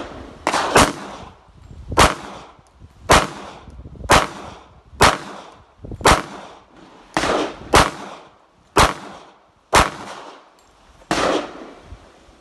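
Glock 30 subcompact pistol in .45 ACP firing a string of single shots, each with a short ringing tail. The shots come about one a second, with a couple of quick pairs, paced on the trigger reset.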